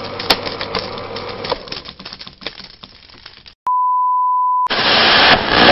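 A rapid clicking rattle that thins out and fades, then a steady single-pitch reference test tone of the kind played with colour bars, lasting about a second, followed by loud hissing static.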